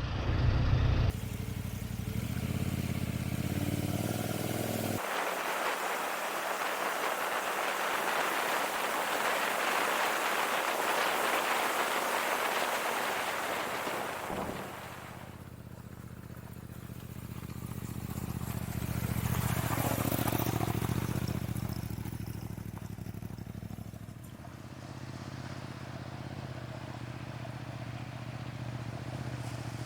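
Motorcycle engine running on the move, mixed with wind and road noise. The sound changes abruptly a few times; in one long stretch the engine drops out and only a broad rushing noise is left.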